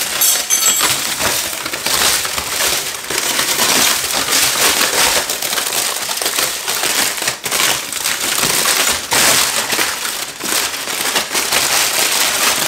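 Crumpled aluminium foil crinkling and crackling as it is pulled and peeled open by hand, a continuous dense rustle with many sharp crackles.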